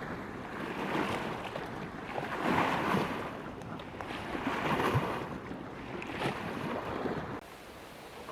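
Sea waves washing, swelling and fading in surges about every one and a half to two seconds. The sound cuts off suddenly near the end, leaving a fainter steady hiss.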